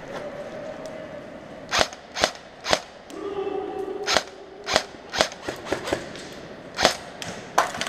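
Airsoft replica rifles firing single shots, about ten sharp cracks at uneven intervals, some in quick pairs, from about two seconds in to the end.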